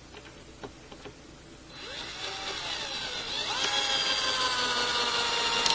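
Cordless drill motor starting about two seconds in and rising in pitch, then running steady at high speed before stopping sharply near the end, driving a screw through the clamp rail into the door frame.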